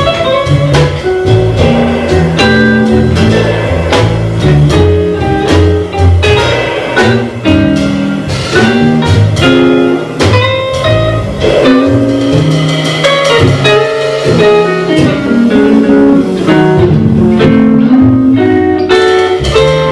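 Live jazz guitar trio playing a blues: electric jazz guitar through an amp, upright double bass and drum kit with cymbals, all sounding together throughout.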